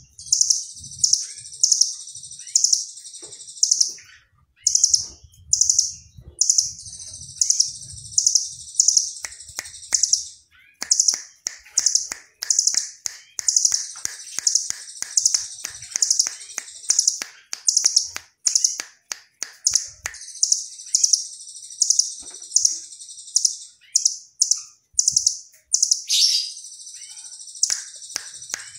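Caged blue nuthatch calling: series of high, sharp notes repeated several times a second, broken by short pauses, with a long, fast trill of notes from about nine to twenty seconds in.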